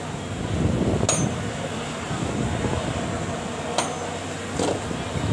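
Three sharp knocks, about a second in, near four seconds and just before five, of firewood logs being stacked onto a cremation pyre, over a steady outdoor background hubbub.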